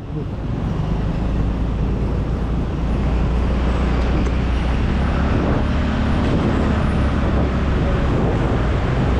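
Yamaha Mio Gravis 125 cc single-cylinder scooter running while being ridden, a steady low rumble of engine, road and wind noise on a helmet- or bike-mounted action camera microphone. The sound fades in over the first second.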